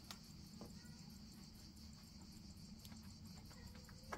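Faint, steady high-pitched chorus of insects, with a couple of light clicks from handling.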